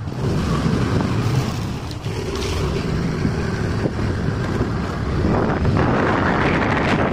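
Wind buffeting the microphone on a moving motorbike, over a low rumble from the road and engine. The wind noise grows louder about five seconds in.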